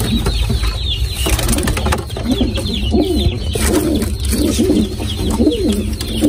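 Domestic pigeons cooing again and again, with fainter higher chirps from other birds over a steady low rumble.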